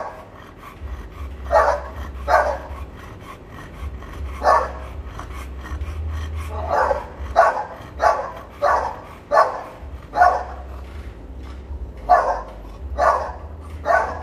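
A dog barking repeatedly, about a dozen short barks in irregular groups, over a low steady hum.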